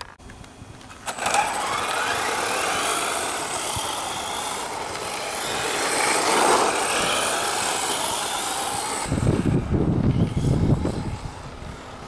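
1/10 scale RC rally car driving, its motor running with a whine that rises in pitch as it speeds up about a second in. A rougher low rumble comes in about nine to eleven seconds in.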